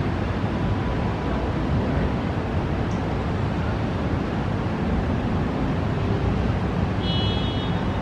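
Steady rush of a thunderstorm's wind and rain, with wind buffeting the microphone. About seven seconds in, a brief high-pitched tone sounds over it.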